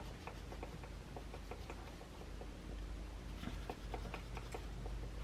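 Light rubbing and small irregular clicks of a Sunshine polishing cloth wiping excess ink off small stamped metal charms, over a steady low hum.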